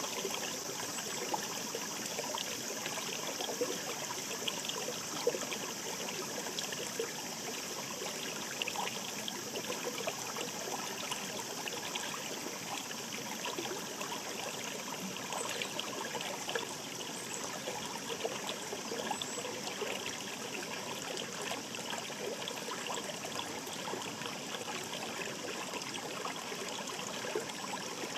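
Shallow mountain stream babbling steadily over stones, a continuous trickling and splashing with small droplet-like plinks scattered throughout.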